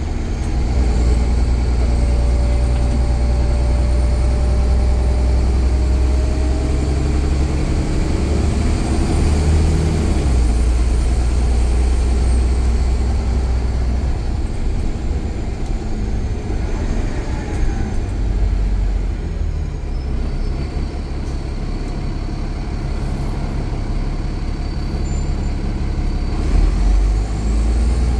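Alexander Dennis Enviro500 double-decker bus's diesel engine running, with a steady low rumble and whining tones that rise and fall in pitch.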